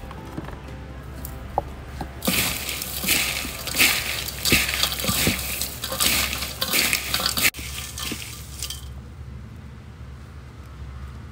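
Gloved hands tossing and mixing a heap of grasshoppers with salt, chilli and green onion in a large aluminium bowl. It makes a dense, crackly rustle with small scrapes and clinks against the metal. It starts about two seconds in and stops about nine seconds in.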